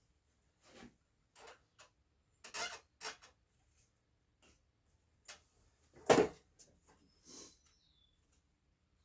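Wooden slats and tools being handled at a bench: a string of light taps and knocks, with one louder knock about six seconds in. The miter saw is not running.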